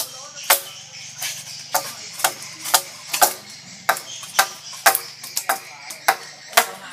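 A hand-held blade chopping into a wooden pole to strip its bark off, in quick, sharp strokes about two a second.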